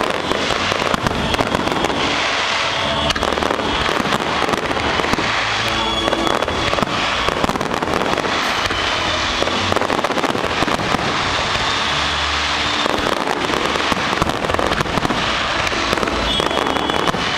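A fireworks display firing continuously: many shells bursting at once in a dense, unbroken run of bangs and crackles, with no pause.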